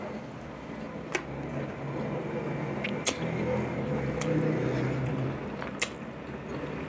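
Close-miked chewing and mouth sounds under a low hum, with three sharp clinks of a ceramic soup spoon against the bowl, about one, three and six seconds in.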